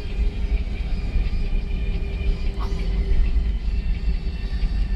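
Cabin sound of an Airbus A320 taxiing: a steady low rumble with an even engine hum and a fainter high whine from the jet engines.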